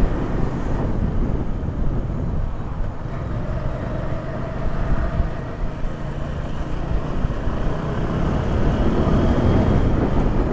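Motorcycle running at a steady road speed, its engine mixed with rumbling wind and road noise.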